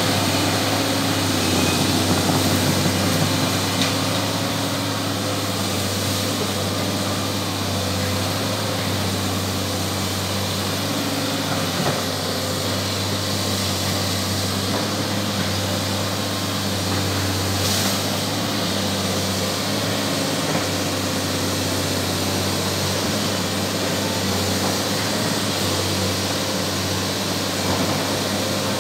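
An excavator's diesel engine running steadily at a constant speed, with a low, even hum.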